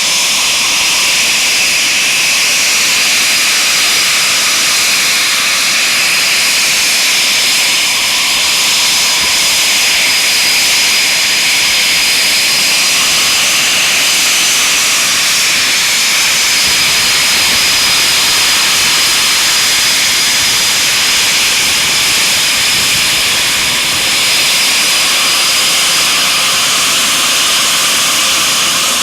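Twin Eurojet EJ200 turbofans of a Eurofighter Typhoon running steadily at idle, a loud, even, high-pitched whine over a jet hiss.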